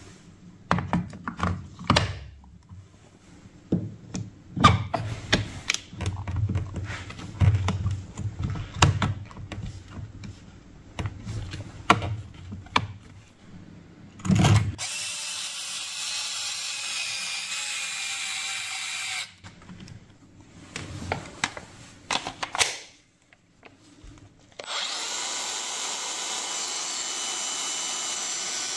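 Makita DGA505 brushless angle grinder running with no load, a steady high whine heard twice: for about four seconds from about halfway through, and again near the end. Before that, a string of clicks and knocks as the tool is handled.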